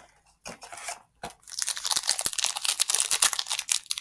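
Foil wrapper of a Yu-Gi-Oh! Speed Duel booster pack being crinkled and torn open by hand: a few light clicks, then dense crackling from about a second and a half in.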